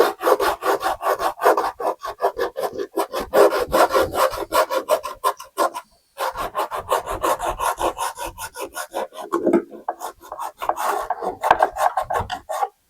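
Coarse 60-grit sandpaper scuffing the inside of a fiberglass boat hull: a rapid, rhythmic scratching of many strokes a second. It breaks off briefly about six seconds in and eases near ten seconds. The hull is being roughed up before fiberglass work.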